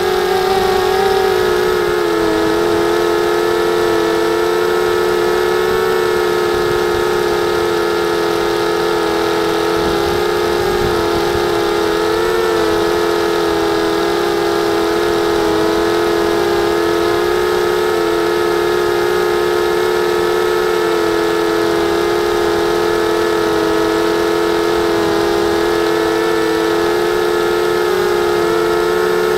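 Motors and propellers of a 250-size FPV racing quadcopter in flight, picked up by its onboard camera: a loud, steady buzzing whine whose pitch shifts slightly now and then with the throttle.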